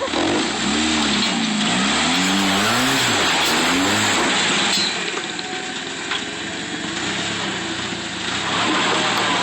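Jeep Wrangler engine revving up and down again and again as it crawls over rocks, over a steady hissing rush of noise; the revs ease off in the middle and the engine pulls hard again near the end.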